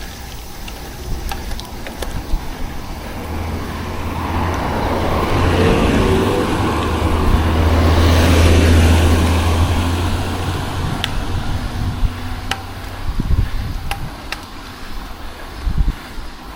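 A car passes close by. Its engine and tyre noise build over several seconds, are loudest about eight seconds in, then fade away.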